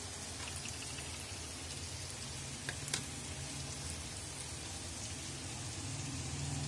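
Mutton pieces sizzling in oil and spices in a karahi as they are browned (bhuna), with a couple of sharp clicks of the spoon against the pan about three seconds in.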